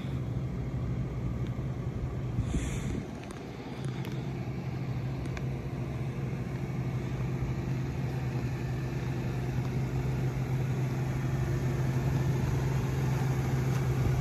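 Toyota Tacoma pickup's engine running at low speed as the truck rolls up close, a steady low hum that dips briefly about three seconds in.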